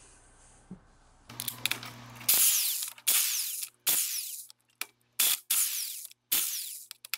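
Corded electric impact wrench undoing the flywheel bolts on a BMW R90/6 boxer engine, run in a string of short bursts with brief pauses between them, starting about two seconds in.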